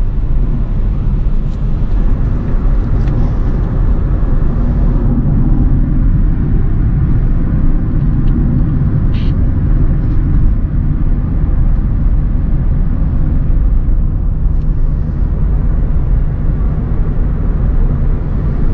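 Acura RSX cabin noise while driving: the four-cylinder engine and road noise make a steady low rumble. A single short tick sounds about nine seconds in.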